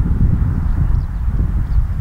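Outdoor woodland ambience: a steady low rumble with faint, short, high bird chirps now and then in the background.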